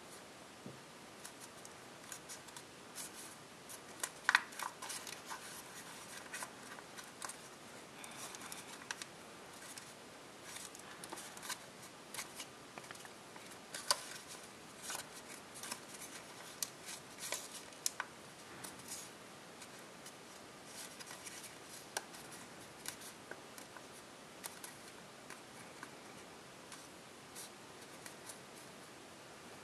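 Copper tissue foil being folded and creased by hand: irregular crisp crackles and rustles, with the sharpest crinkles about four seconds in and again near fourteen seconds.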